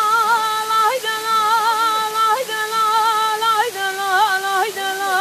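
A woman singing unaccompanied dengbêj, the Kurdish sung-story tradition, in long held notes ornamented with trills, broken by short breaths about every second; the melody steps down in pitch a little after halfway. A waterfall's steady rush runs beneath the voice.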